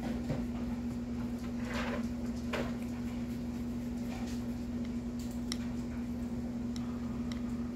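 A thin paintbrush stirring flesh-tone paint in a small glass jar: soft scrapes about two seconds in, then a few light clicks of the brush against the glass near the end, over a steady low hum.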